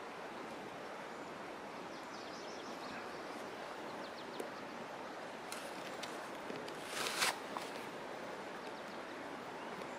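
Handling sounds of a wading boot's laces being untied: small rustles and clicks, and one short louder rasp about seven seconds in, over a steady outdoor background hiss.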